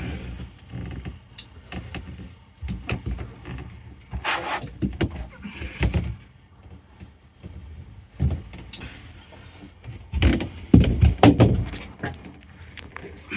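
Irregular knocks, scrapes and thumps from handling around a snake enclosure and box while a reticulated python is coaxed inside, loudest about ten to eleven and a half seconds in.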